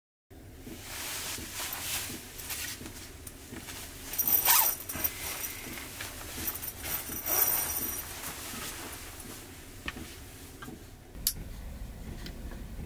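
Padded sleeping bag rustling as someone shifts inside it, with two louder swishes, then a sharp click near the end as a battery camping lantern is switched on.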